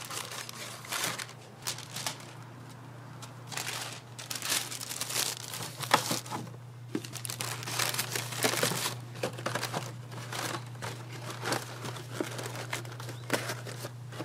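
Packaging crinkling and rustling in irregular bursts as it is handled, with a steady low hum underneath.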